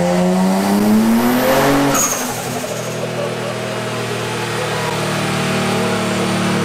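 Twin-turbo V6 of an Infiniti G35 coupe at full throttle on a chassis dyno, rising steadily in pitch through a pull. About two seconds in the throttle closes with a sudden burst of hiss, and the engine then runs steadily at a lower, even pitch as the pull ends.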